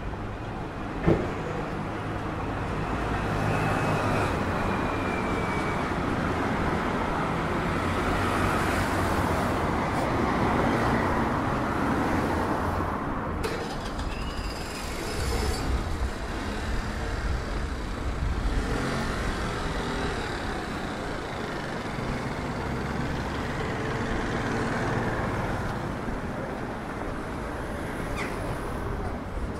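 Street traffic passing, a continuous noise of vehicles, with a sharp knock about a second in and a faint high squeal sliding down a few seconds in.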